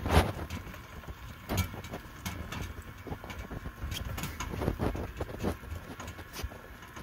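Small battery-electric farm tractor, driven by an electric moped motor, rolling down a crop row over rough soil, with irregular knocks and rattles over a low rumble; a sharp knock right at the start is the loudest.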